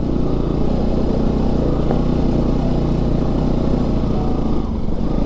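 Motorcycle engine running at steady revs while the bike is ridden over a rough, rocky dirt track.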